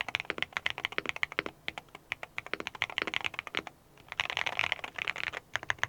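Mechanical keyboard typing on Akko Botany long-pole switches: fast runs of loud, high-pitched, clacky keystrokes. There is a brief pause a little before four seconds in, then a quick flurry of keystrokes.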